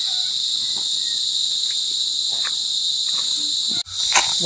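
Steady, shrill chorus of insects, an unbroken high drone. It drops out for an instant about four seconds in and comes back louder.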